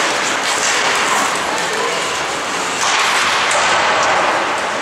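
Ice hockey play in a rink: a steady hiss of skates on the ice with a few sharp stick-and-puck clicks, and faint shouting voices.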